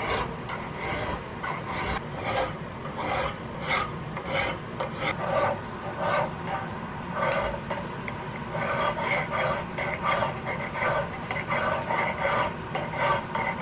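Safe-sided hand file scraping across a small steel rear-sight piece in repeated short strokes, cleaning up the sight's face around its dovetail ahead of metal finishing.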